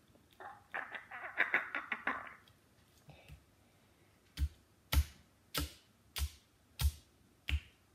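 Wire potato masher being slammed down onto tomato and egg on a plastic cutting board: a quick flurry of mashing noises near the start, then six sharp, evenly spaced thuds about two seconds apart from the middle on.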